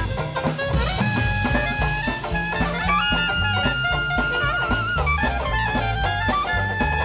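Traditional New Orleans jazz band playing live: brass lead over a steady bass line and drums, with a horn holding one long note in the middle that ends in vibrato.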